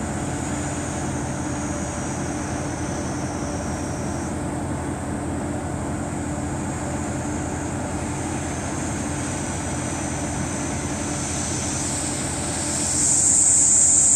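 Kominato Railway KiHa 200 diesel railcar idling at a standstill, a steady low engine hum. About thirteen seconds in, a loud high-pitched insect buzz comes in over it and becomes the loudest sound.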